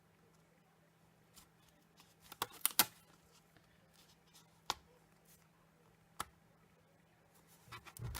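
A few light taps and clicks of cardstock being handled and set down on a desk, a cluster of three a little past two seconds in and single ones later, over a faint steady hum.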